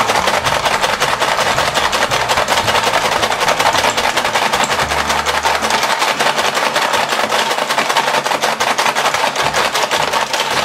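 Motorised Paw Patrol ball-racing toy running, with a rapid, steady plastic clicking clatter from its mechanism and the balls as the pup racers gather them.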